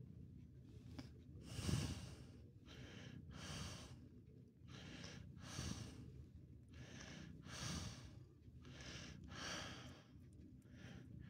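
Slow, steady breathing heard close up, a soft in-and-out roughly every two seconds.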